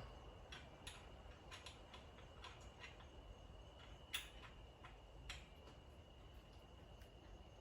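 Faint, irregular small clicks and taps of hardware and hand tools being handled during a mirror mount install, the loudest about four seconds in, over a faint steady high-pitched tone.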